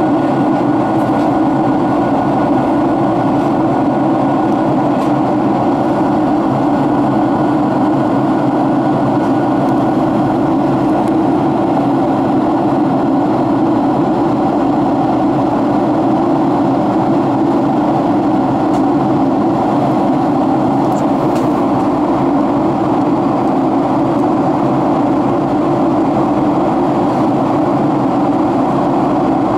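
Steady in-flight cabin noise of a Boeing 767-300ER heard from inside the cabin: the even drone of the wing-mounted Rolls-Royce RB211 turbofan mixed with airflow over the fuselage.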